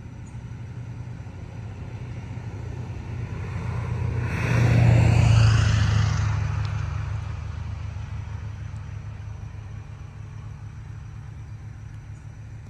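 Steady low engine rumble, with a vehicle passing close by: its noise swells to a peak about five seconds in, then fades away with a falling pitch.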